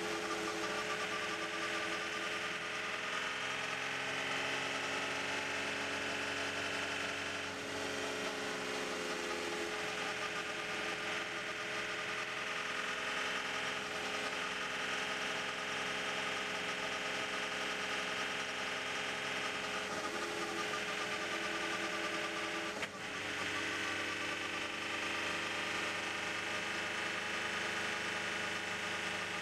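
Audi R18 e-tron quattro's V6 diesel engine and drivetrain running at low, steady revs, heard from inside the cockpit, with a high mechanical whir over the engine note. About three-quarters of the way through there is one brief click and dip in the sound.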